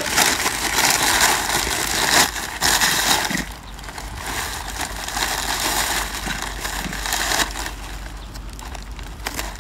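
Plastic bag and newspaper wrapping crinkling and rustling as a durian is unwrapped by hand. The crinkling is loudest for the first three seconds or so, then goes on more softly.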